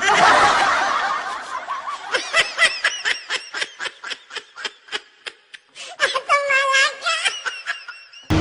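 Snickering laughter: a breathy burst, then a long run of short high-pitched laughs at about five a second that slowly spread out, with a fuller burst of laughing near the end.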